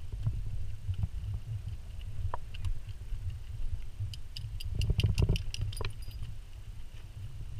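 Low, uneven rumble of wind and handling noise on a handheld camera's microphone. Near the middle, a quick run of about ten light clicks comes over it.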